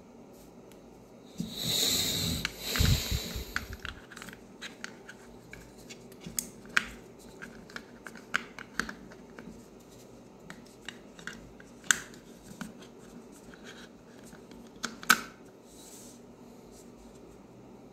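Small plastic earbuds and their charging case being handled: a couple of seconds of scraping and rubbing near the start, then scattered light clicks, with two sharper clicks later on as the buds are fitted into the case.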